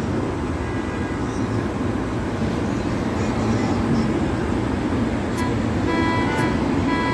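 Steady street traffic noise from passing cars. Music comes in faintly for about the last two seconds, with a tick about once a second.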